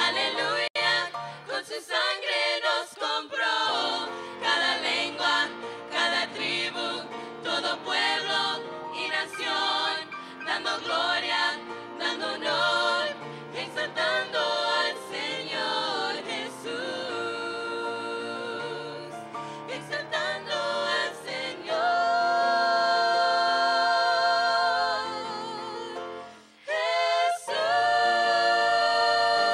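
A group of five women singing a Christian worship song in harmony into handheld microphones. It ends on long held chords, the first broken off briefly before the second.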